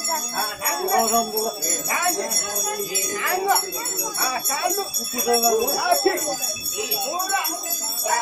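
Small bells jingling and ringing steadily, mixed with many people's voices talking over one another.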